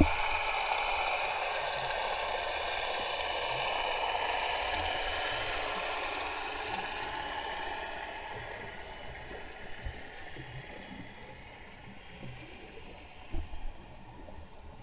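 Underwater noise heard through a submerged camera housing: a steady, even hiss that fades away over the first half, with scattered low knocks and bumps. The clearest knocks come as a pair near the end.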